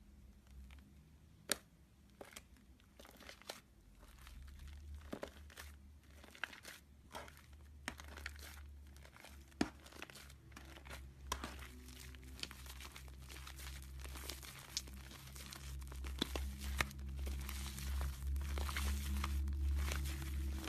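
Slime mixed with shaving foam being squeezed and stretched by hand: sticky crackles and small pops that come thicker and louder as it goes on. A steady low hum runs underneath.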